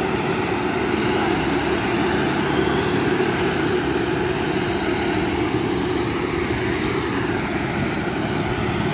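Motor grader's diesel engine running steadily as it spreads dumped soil over a road subgrade with its blade.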